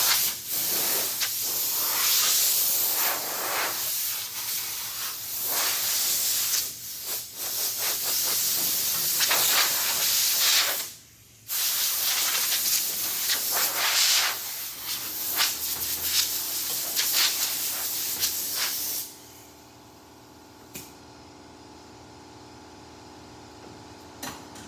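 Loud hissing spray in long, uneven bursts while the truck's dash center bar is being cleaned, with a brief stop about 11 seconds in. Near the end it gives way to a quiet, steady hum.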